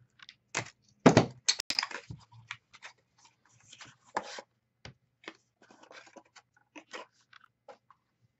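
Foil wrapper of a Panini Spectra football card pack crinkling and tearing as it is handled and opened, with scattered rustles and small clicks; the loudest crinkling comes about a second in.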